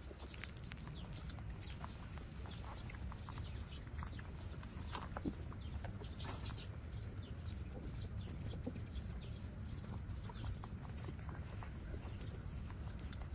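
Eight-day-old puppies nursing, with many short high squeaks and suckling noises coming several times a second.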